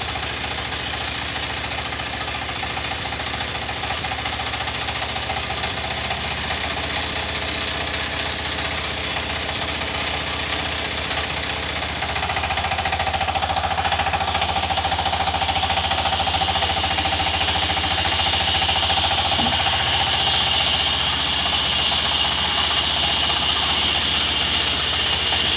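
Engine running steadily with a fast, even knock. It grows louder about halfway through, and a high steady whine joins it soon after.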